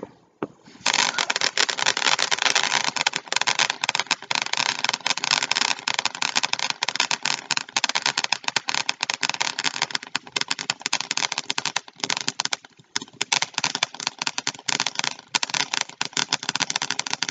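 Ground fountain firework spraying sparks: a dense, continuous crackling hiss that starts about a second in, with a brief lull about two-thirds of the way through.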